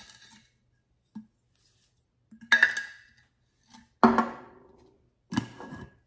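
Kitchen containers and utensils knocking and clinking: four separate knocks, each ringing on briefly, the loudest about four seconds in.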